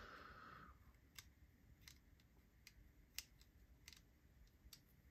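Very faint, scattered small clicks of a driver tool turning the pocket-clip screw on a small folding knife, with a short soft hiss in the first second.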